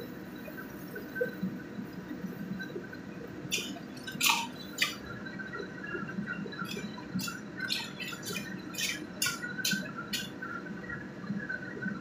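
Snails cooking in sauce in a wok, sizzling and bubbling steadily, while a metal ladle knocks and scrapes against the wok and the shells, a run of sharp clinks from about three and a half seconds in until about ten seconds.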